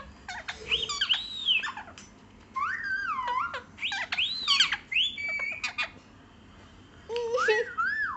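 Pet green parakeet calling from its cage: shrill squawks that rise and fall, in three bursts with short pauses between.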